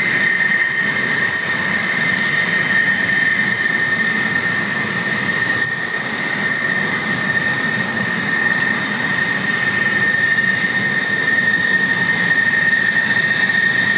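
F-16D fighter jet's engine running at taxi power: a steady high-pitched whine over a broad rush of jet noise.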